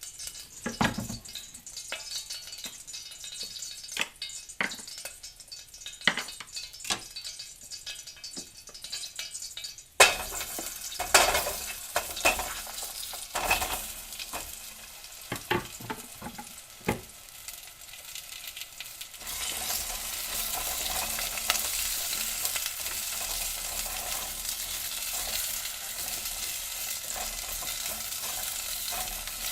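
Carrots stir-frying in a pan: a sizzle broken by the knocks and scrapes of a utensil stirring them. About ten seconds in the sizzle turns louder, and near twenty seconds it settles into a steady, dense sizzle with few knocks.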